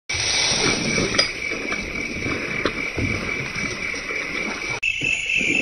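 Insects chirring steadily in the grass, with scattered light ticks from a spinning reel being cranked. The sound drops out for a moment about five seconds in.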